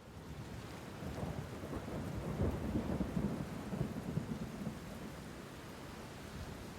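A low rumbling noise with a crackling texture over it. It swells about a second in and eases off after about five seconds.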